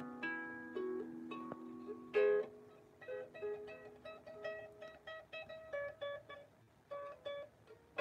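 Out-of-tune harp being plucked: ringing single notes, a louder chord about two seconds in, then a run of quick plucks on the higher strings, about three or four a second.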